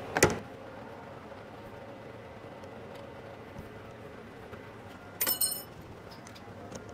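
Hands-on handling noises as an acrylic sheet is fitted onto a surface grinder's splash-guard rail: a sharp knock just after the start, then a steady low shop background, and a brief clink with a high ringing tone about five seconds in.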